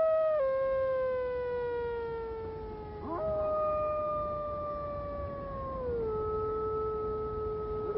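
Grey wolves howling: long, drawn-out howls that slide slowly down in pitch. A new howl scoops up and comes in about three seconds in, overlapping the end of the one before.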